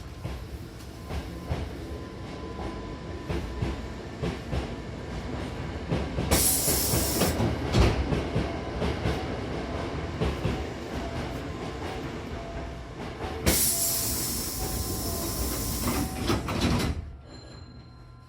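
Hankyu Imazu Line electric train running after pulling out of a station, heard from inside the car: rumble and rail noise, with a brief loud rushing hiss about six seconds in and a longer one from about thirteen to seventeen seconds. The noise drops off sharply near the end.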